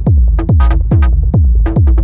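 Electronic techno-style beat from a groovebox and Eurorack effects rig. A deep kick drum with a falling pitch sounds about twice a second, with clicky high hits and short pitched synth stabs between the kicks.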